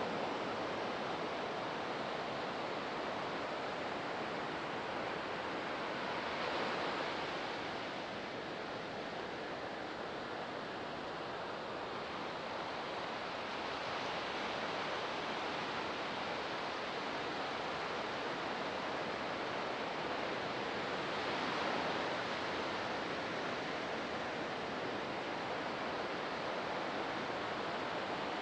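Ocean surf breaking on a beach: a steady wash of waves that swells a little about six seconds in and again a little past twenty seconds.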